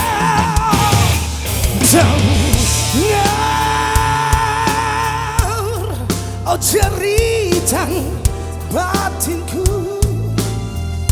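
A rock band playing live: drums and a steady bass under a lead melody that is held on long notes and bent up and down.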